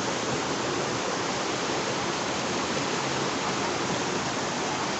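Steady rush of flowing water, as from a stream or small waterfall, an even unbroken noise.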